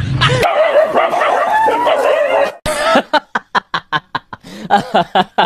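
A dog yelping with a wavering whine, then a fast run of short yips and barks, about five a second.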